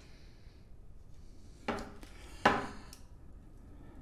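Two short knocks, the second louder, a little under a second apart: handling noise from the long fibreglass antenna tube being moved and knocked on the workbench.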